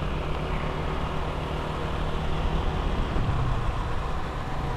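Motorcycle ridden at a steady cruise, heard from the rider's own bike: a low, even engine note under constant wind and road noise.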